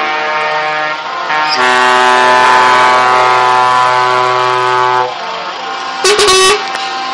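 Truck air horns sounding as trucks drive past: a loud multi-tone horn chord held from about one and a half to five seconds in, sliding down in pitch as it ends, then a short sharp blast near the end.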